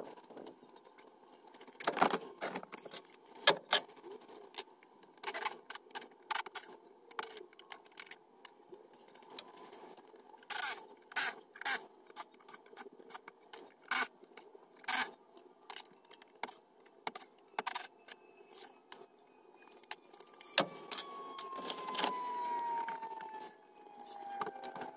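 Irregular sharp knocks and metallic clinks from carpentry work on a shed, a couple of dozen strikes spread unevenly. Over the last few seconds a whine slowly falls in pitch.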